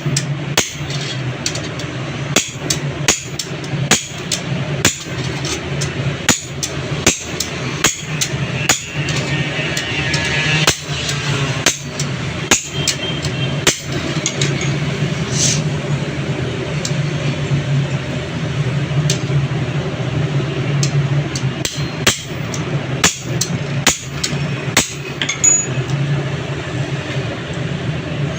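Hammer blows on metal, struck repeatedly at an uneven pace, most closely spaced in the first half, over a steady low hum.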